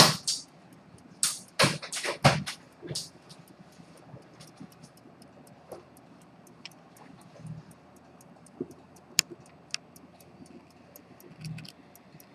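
A few loud clicks and knocks of handling in the first three seconds, then an antique fusee pocket watch movement ticking evenly, several light ticks a second.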